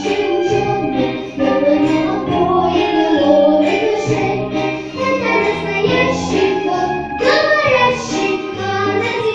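A young girl singing a children's song into a microphone, amplified over the hall's speakers, with an instrumental backing track carrying a steady bass line underneath.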